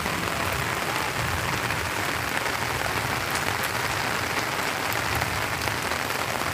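Heavy rain pouring down steadily, a dense even hiss with no break, over a street flooded with runoff.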